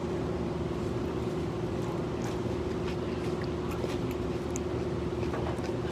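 A steady mechanical hum holding one pitch, over a low rumble, with a few faint clicks.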